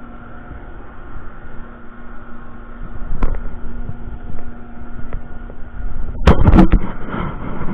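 Steady machinery hum on a ship's deck, with a sharp knock about three seconds in and a burst of loud knocks and clatter near the end.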